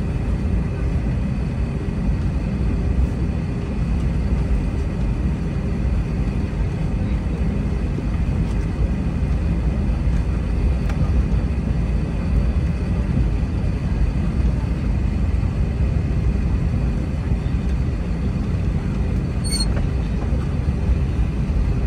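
Steady low rumble inside an Airbus A321 cabin, from its IAE V2500 engines and the airframe, holding an even level throughout.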